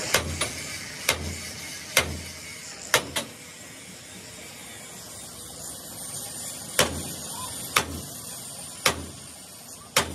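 Sharp knocks, like hammer blows, about once a second, with a gap of about three seconds midway.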